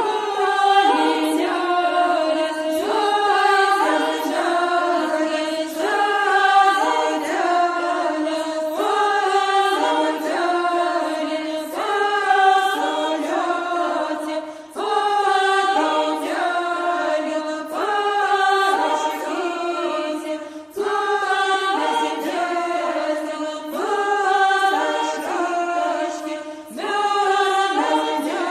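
A group of voices singing a short, chant-like folk phrase over and over, repeating about every two seconds, with brief breaths between runs.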